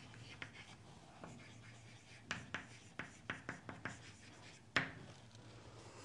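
Chalk writing on a chalkboard: a run of short, faint taps and scratchy strokes as the letters go down, with one sharper tap a little before the end.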